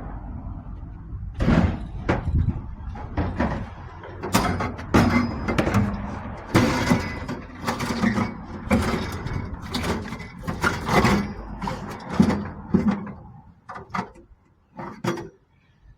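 Irregular bangs, knocks and clatter of scrap boilers being handled and loaded onto a scrap truck, coming thick and fast through most of the stretch and thinning to a few separate knocks near the end.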